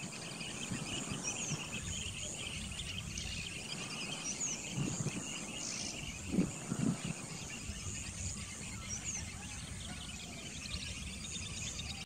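Wetland ambience: a steady chirring of insects with three short, faint high bird chirps spread through it. A low rumble runs underneath and swells twice near the middle.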